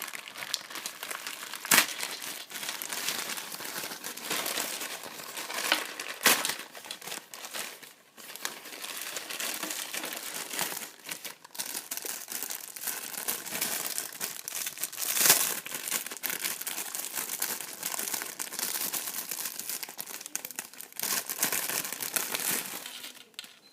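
Plastic mailer packaging being torn open and handled, with continuous crinkling and rustling and a few sharper, louder crackles about 2, 6 and 15 seconds in.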